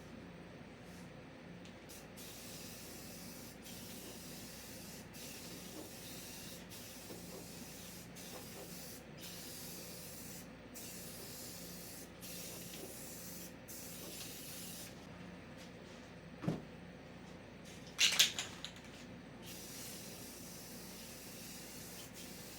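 Clear coat paint being sprayed in a run of hissing passes with short breaks between them. About three-quarters of the way through there is a brief loud clatter, then the spraying resumes.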